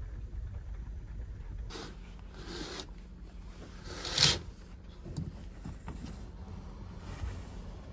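Rain falling at night, a steady hiss of noise, with one short, loud rubbing swish about four seconds in.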